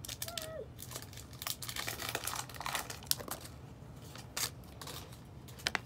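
Foil wrapper of a Pokémon trading-card booster pack being crinkled and torn open: an irregular run of crackles and rustles.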